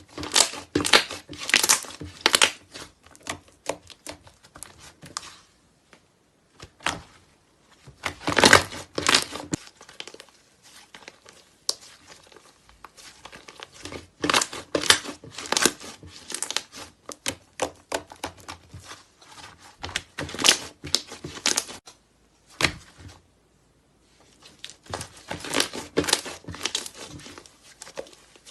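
Slime being squeezed and pressed by hand, giving bursts of crackling, popping clicks with short pauses between them.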